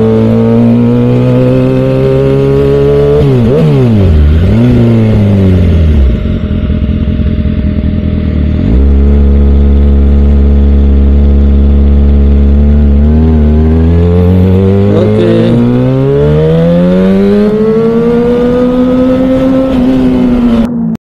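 Sport motorcycle engine heard from on the bike while riding: its pitch drops and jumps with a throttle blip about four seconds in, runs steady through the middle, then climbs as the bike accelerates near the end. The sound cuts off suddenly just before the end.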